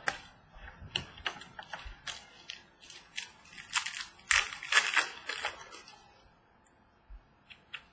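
Baseball trading cards being handled and flipped through: a quick run of sharp papery clicks and snaps, busiest about four to five seconds in, then dying away to a few faint ticks.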